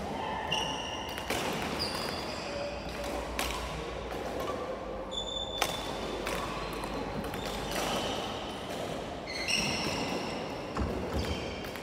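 Badminton rally: sharp cracks of rackets hitting the shuttlecock and short, high squeaks of sports shoes on the wooden court floor, over a steady low hum in a large sports hall.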